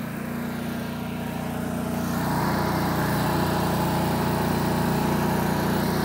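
Cummins Onan QG 4000 gasoline RV generator running steadily, getting louder over the first two seconds and then holding level.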